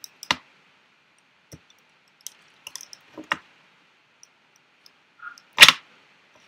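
Plastic segments of a Rubik's Snake puzzle clicking as they are twisted and handled: a handful of short sharp clicks, then one much louder plastic knock near the end.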